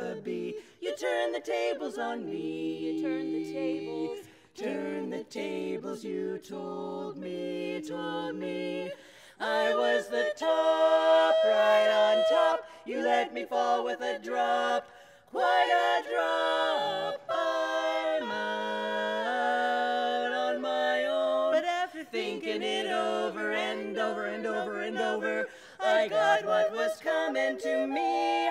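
Women's barbershop quartet singing a cappella in close four-part harmony, holding chords with short breaks for breath. Softer for the first nine seconds or so, then louder.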